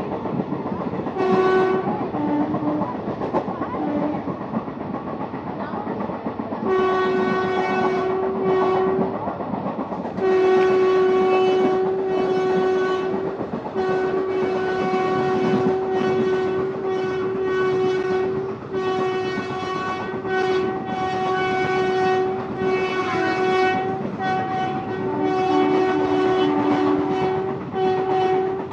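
WAG-7 electric locomotive's horn sounding over and over as it hauls a passenger train past at gathering speed, over the rumble and wheel clatter of the train. A short blast about a second in, a longer one at about seven seconds, then near-continuous blasts with brief breaks, a second, lower note joining in now and then.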